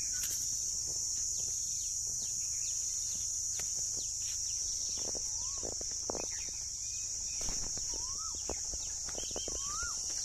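Outdoor ambience of birds calling, with three short rising-and-falling whistled notes in the second half, over a steady high-pitched drone. Scattered footsteps sound on sandy ground.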